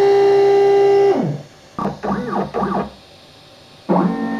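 Water-cooled CNC spindle whining steadily at high speed, then winding down in a fast falling whine about a second in. Short wavering, rising and falling motor tones follow as the machine moves. A new steady whine starts with a quick rise near the end.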